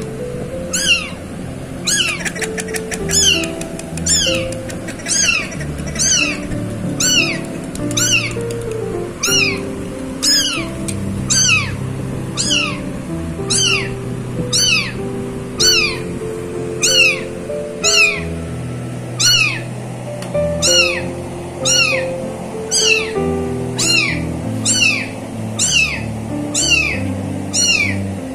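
High-pitched kitten meows, each falling in pitch, repeating very evenly about every 0.7 s over background music with a melody.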